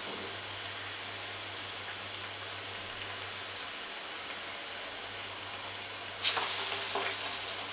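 Spinach-and-dal vadas deep-frying in hot oil in a steel pan, a steady sizzle. About six seconds in, another flattened vada is slid into the oil and the sizzle flares up loudly, then eases off.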